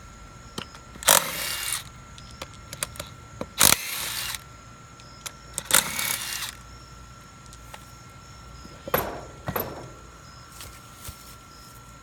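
DeWalt 20-volt cordless impact driver hammering in three short bursts about two seconds apart, spinning the lug nuts off a tractor wheel hub. About nine seconds in come two sharp metallic knocks.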